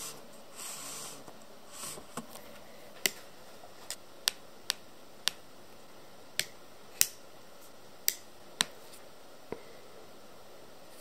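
About ten sharp plastic clicks at irregular spacing as small parts of a Gunpla model kit are handled, cut and fitted together, after a short rustle at the start.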